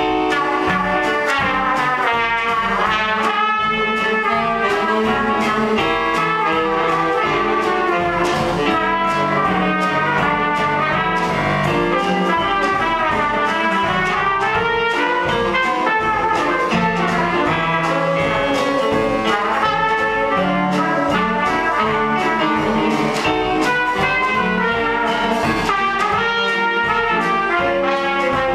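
Trumpet playing a jazz solo line over piano and upright bass accompaniment.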